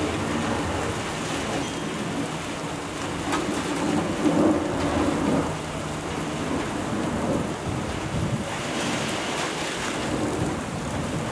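Steady rain falling, under a low rolling rumble of thunder that swells for a few seconds partway through.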